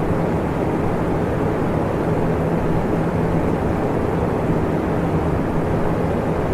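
Electric fan running steadily: an even rush of moving air with a low, steady hum underneath.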